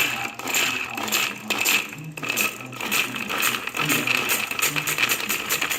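Small metal parts rattling and clinking continuously, a dense run of little clicks being handled or shifted about.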